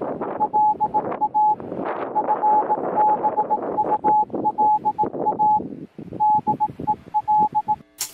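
Morse code beeps: a single steady mid-pitched tone keyed on and off in short and long pulses, over wind rumbling and rustling through foliage. Near the end the wind noise cuts out and a sharp click sounds.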